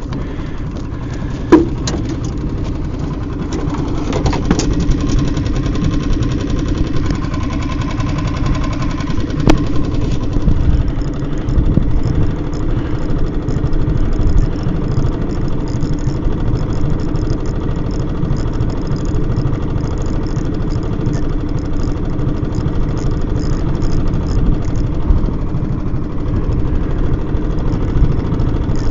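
Small boat's outboard motor running steadily, with two sharp clicks, one about a second and a half in and another near ten seconds in.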